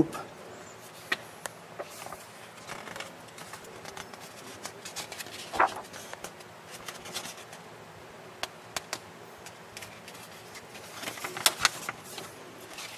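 Glossy pages of a car sales brochure being handled and turned: scattered small paper clicks and short rustles, with a louder rustle about five and a half seconds in and a quick cluster of them near the end.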